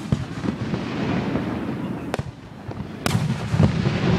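Aerial firework shells bursting during a fireworks grand finale: sharp bangs at the start, about two seconds in and again about a second later, over a continuous low rumble of further reports.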